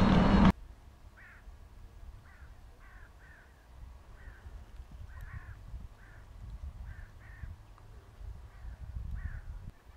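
A crow-type bird calling over and over, about a dozen short calls spread through several seconds, over a low wind rumble on the microphone. It opens with half a second of loud riding noise that cuts off suddenly.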